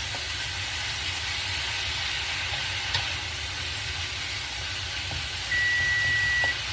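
Chicken and mixed vegetables sizzling steadily in a hot stir-fry pan. Near the end a steady electronic beep sounds for about a second.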